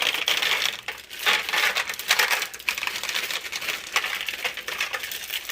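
Plastic bag of chocolate chips crinkling and rustling in irregular bursts as it is handled and the chips are shaken out into the cake pan.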